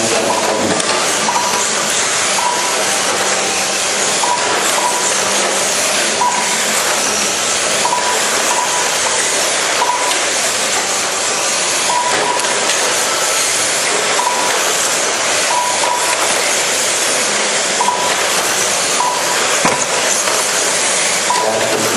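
Radio-controlled cars running on an indoor track: a loud, steady hissing noise of motors and tyres, with short high beeps recurring every second or two.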